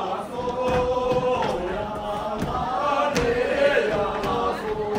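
A group of voices chanting together in unison on long held notes, with a few sharp knocks over it.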